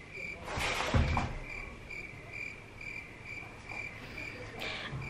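A faint, high chirp repeating evenly a little over twice a second. About a second in there is a rustle with a low thump.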